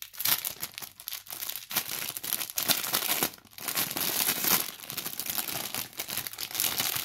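Clear plastic bag crinkling and rustling in irregular bursts with brief pauses as hands pull and unwrap a metal tiara inside it.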